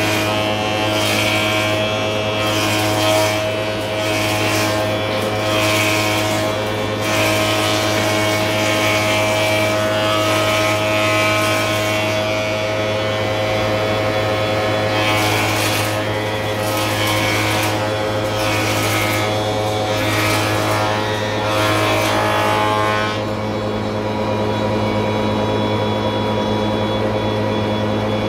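Spindle moulder and dust extractor running with a steady hum, while irregular rushing bursts come and go as the spindle cutter works a skirting board. The bursts stop about 23 seconds in, leaving only the machines running.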